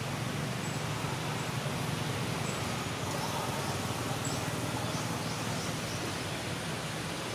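Steady outdoor background noise: a constant low hum and hiss, with a few faint high chirps.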